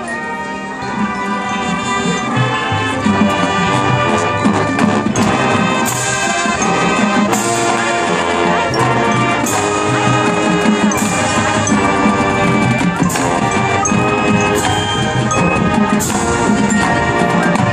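High school marching band playing loud, full brass chords with drums and the front ensemble's percussion, swelling in volume over the first few seconds, with cymbal crashes every second or two.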